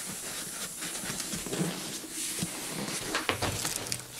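Hands rustling and crinkling a plastic sheet and a vinyl motorcycle seat cover as the cover is pulled and tucked over the seat base, with scattered light clicks and crackles.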